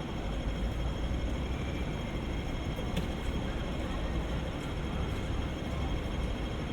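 Steady low rumble of background noise, even in level throughout, with a faint click about three seconds in.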